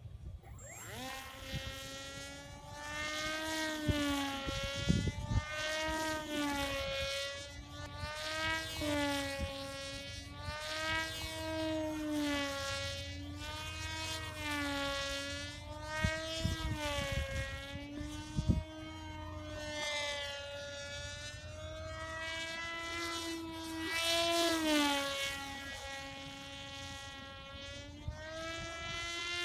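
RVJET flying wing's 900 kV electric motor and pusher propeller whining in flight, the pitch rising and falling with each pass and throttle change, and dropping sharply at the very end. A low rumble and a few brief thumps sit under it.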